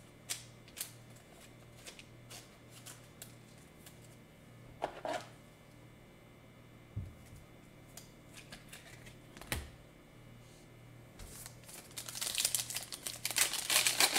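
Scattered small clicks and taps of cards and packs being handled on a table, then near the end a dense crinkling as a foil trading-card pack wrapper is gripped and opened by hand.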